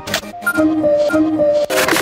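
Instrumental background music: held melodic notes with sharp percussive hits near the start and near the end.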